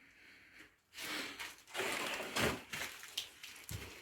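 Irregular crunching and rustling noises that start about a second in, with a low thump near the end.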